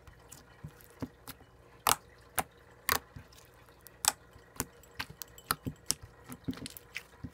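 Soft blue slime being squished and poked by hand, giving irregular sharp clicks and small pops, the loudest about two and three seconds in.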